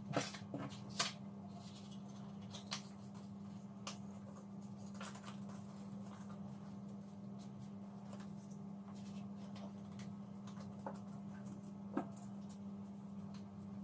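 Square sheets of coloured paper being handled and folded by hand: soft rustling with sharp crisp crinkles and taps as the creases are pressed. The crinkles are strongest just after the start, at about a second in and near the end, over a steady low hum.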